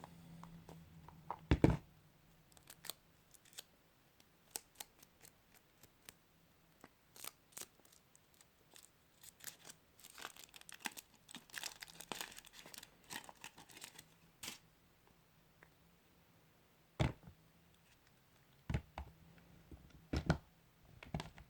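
Kinder Surprise egg foil wrapper crinkling and tearing, most densely around the middle, among scattered light clicks of handling. A sharp knock comes about one and a half seconds in, and three more near the end.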